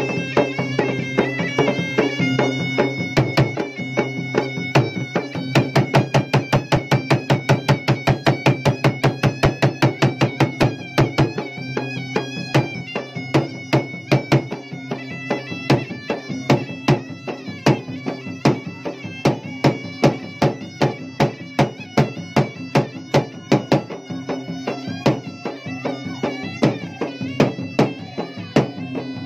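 Traditional Bugis-Makassar gendang (ganrang) drums beaten with sticks in fast, dense strokes, loudest in a driving passage about a third of the way in before settling into a steadier beat. A shrill, reedy wind instrument holds a melody over the drumming.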